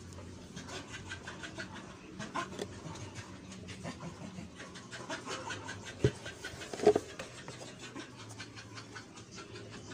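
Sneakers handled in a cardboard shoe box: rustling and scraping of shoe and cardboard, with two sharp knocks about six and seven seconds in as a shoe bumps the box.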